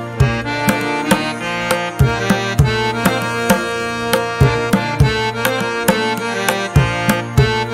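Background instrumental music with a steady drum beat under a melodic line.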